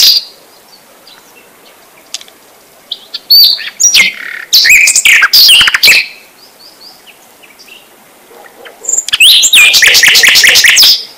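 A bird chirping: two loud bursts of rapid high chirps and trills, one about three to six seconds in and another from about nine seconds to near the end, with faint chirps between.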